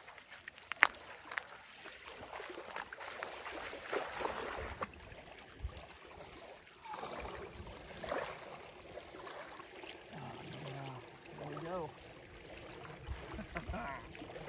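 Shallow lake water sloshing and small waves lapping around a person's legs and hands as a large carp is held in the water for release. There is a sharp knock about a second in and a faint voice near the end.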